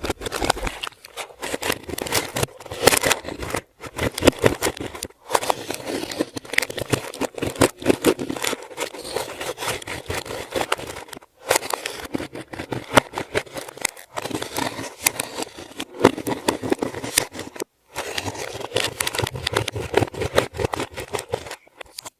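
Hands kneading and squishing clear slime, a dense run of wet clicks, crackles and small pops as trapped air is pressed out, broken by several brief silences.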